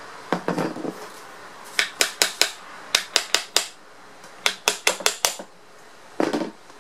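Hammer tapping on an electric motor's metal housing and shaft to knock the rotor loose during disassembly: three quick runs of sharp metallic taps, four or five taps each.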